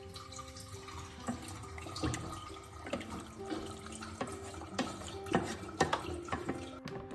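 Kitchen tap running into a sink, with water splashing and short knocks of things being handled under the stream. It shuts off sharply near the end.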